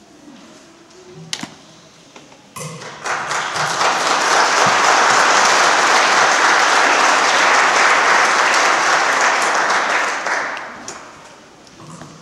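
Audience applauding: the clapping starts about three seconds in, holds steady and dies away some seven seconds later. A couple of single knocks come just before it.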